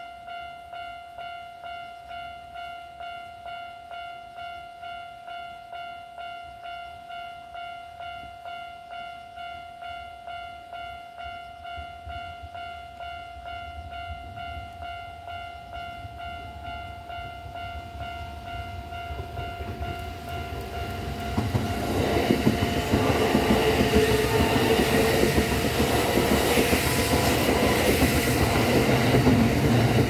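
Japanese level-crossing warning bell ringing in even strokes, a little over one a second. About twenty seconds in, a Kintetsu 80000 series Hinotori electric train approaches, its wheel and running noise building and turning loud over the last eight seconds as it passes the crossing.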